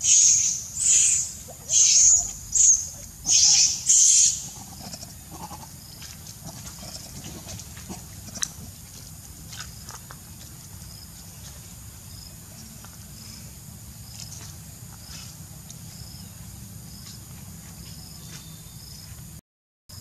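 A monkey squealing: six shrill, high-pitched cries in quick succession over the first four seconds, then only a steady low background hum with faint scattered clicks.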